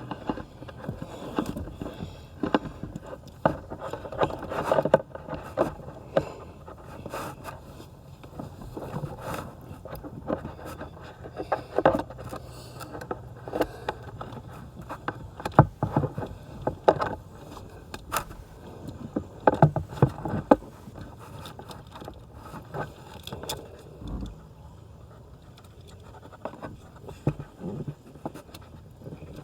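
Irregular scraping and rubbing with scattered sharp knocks and clicks: a child car seat's LATCH connector and strap being worked by hand against the seat upholstery, feeling for the lower anchor bar.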